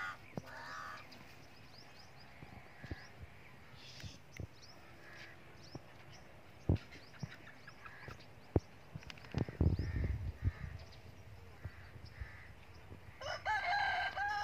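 A rooster crows once near the end. Faint small-bird chirps run throughout, with a few sharp knocks and a brief low rumble of scuffling about ten seconds in.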